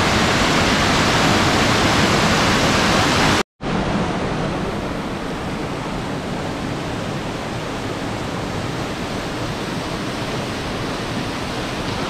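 Rushing water of a rocky mountain stream and waterfall, a loud steady rush. It breaks off for a moment about three and a half seconds in, then goes on a little quieter and duller.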